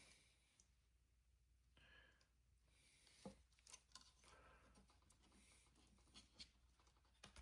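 Near silence, with a few faint clicks and soft rustles of hands handling small parts.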